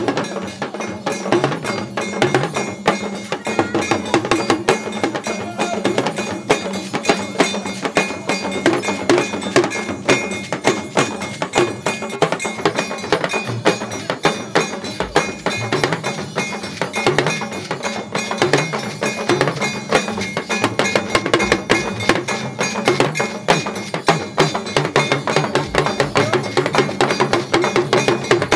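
Live Yoruba traditional drumming: a drum ensemble playing a fast, steady rhythm of dense strokes.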